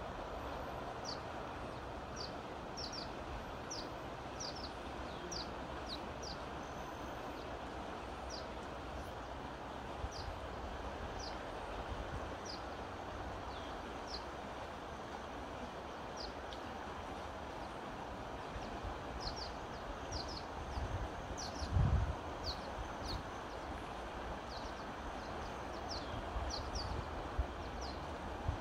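A shallow, fast mountain river rushing over its stony bed in a steady wash, with small birds chirping in short, quick notes above it. A few low thumps come about two-thirds of the way through and again near the end.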